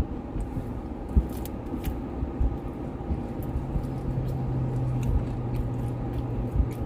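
Quiet eating noises, a few small clicks and bites, over a steady background hum; a low steady drone joins about three seconds in and stops near the end.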